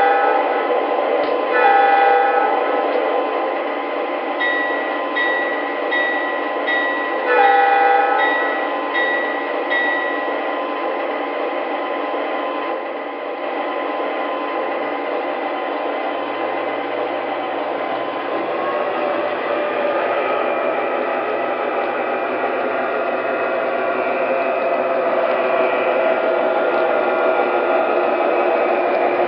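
Onboard sound system of an MTH Premier O-gauge model of a GE ES44AC diesel locomotive. The horn blows a blast at the start, another about two seconds in and a third about seven seconds in, while the bell rings steadily for about five seconds. Then the recorded diesel engine runs on and rises in pitch and grows louder in the second half.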